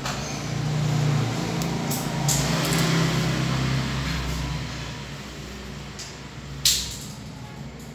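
A low vehicle engine hum that swells and then fades over several seconds, with one sharp click about two-thirds of the way through.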